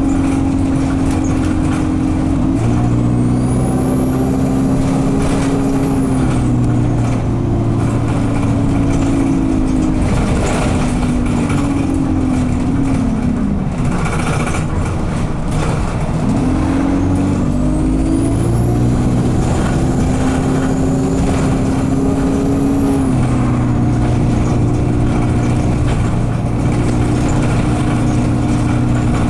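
Alexander Dennis Enviro200 bus's diesel engine pulling hard while held in a low gear, which the title puts down to a gearbox stuck in 2nd/3rd. A high turbo squeal rises and falls twice with the engine's pulls. The engine note drops around halfway through, then climbs again.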